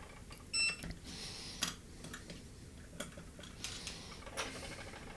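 A short, high-pitched squeak about half a second in, followed by four sharp, light clicks spread over the next few seconds.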